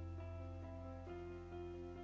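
Background music: soft instrumental notes over a steady bass.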